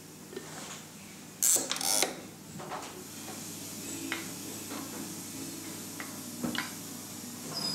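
Hand-worked rose engine clicking and clunking as it engine-turns a watch dial: two loud clatters about a second and a half in, then scattered lighter clicks over a low steady hum.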